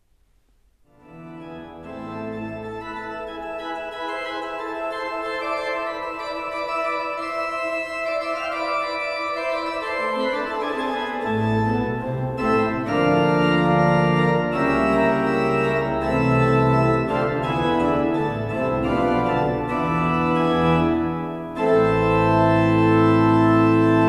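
Church pipe organ playing the postlude after the blessing: slow sustained chords begin about a second in. Deep bass notes join around halfway, and the sound grows fuller to a loud closing chord near the end.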